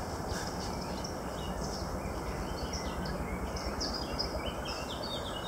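Songbirds singing: many short chirps and trills repeating throughout, over a steady low outdoor background noise.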